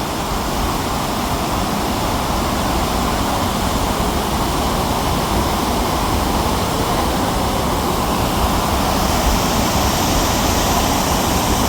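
Swollen flood river rushing steadily: a loud, even, unbroken noise of fast water.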